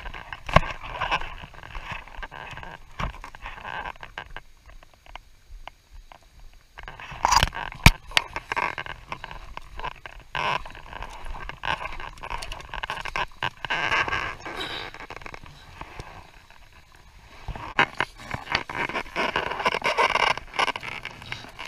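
Footsteps in crampons crunching and scraping on grit-covered glacier ice, irregular, with the rustle of a waterproof suit. The steps pause briefly twice.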